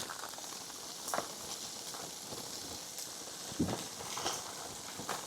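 Breakfast fry-up of bacon, sausages, eggs, mushrooms, tomatoes and spinach sizzling in a pan, a steady hiss with a few light utensil clicks or scrapes.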